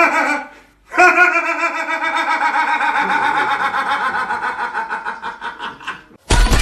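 A man laughing: a short burst at the start, then from about a second in one long run of fast, pulsing laughter that slowly drops in pitch and fades over about five seconds. Loud music cuts in near the end.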